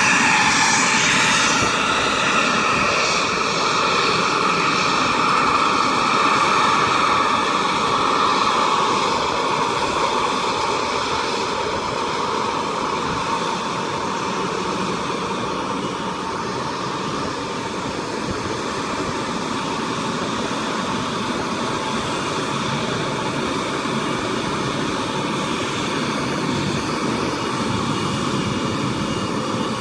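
Twin turbofan engines of a CRJ-900 regional jet running: a steady jet rush with a high whine. It is loudest at the start and eases off over the first ten seconds, then holds steady.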